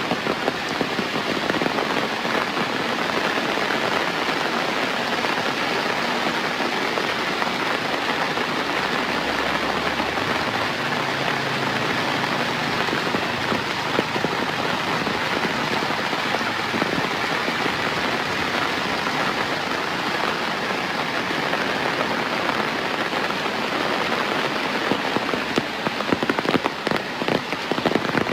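Steady rain falling, a dense even patter. In the last few seconds, sharper individual drop impacts stand out.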